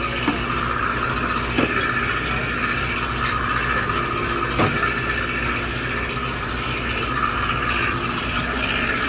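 Fishing boat's engine running steadily at low revs, a constant low hum, with a few light clicks on deck.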